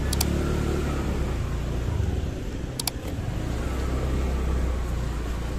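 Motor vehicle engine and road noise in city traffic: a steady low rumble, with a couple of short ticks.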